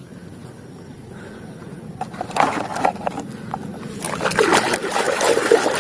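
A plastic toy vehicle being scrubbed and swished in a tub of water: splashing and sloshing with small knocks, starting about two seconds in and getting louder near the end.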